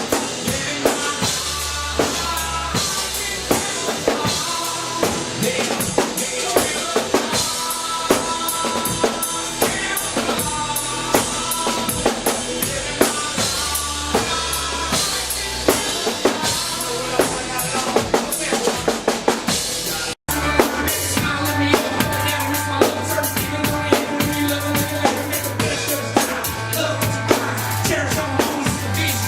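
Live band playing instrumental music during a sound check: a drum kit with kick, snare and rimshots drives a steady beat under a bass line and sustained pitched notes. About twenty seconds in the sound drops out for an instant and the playing resumes with a heavier bass.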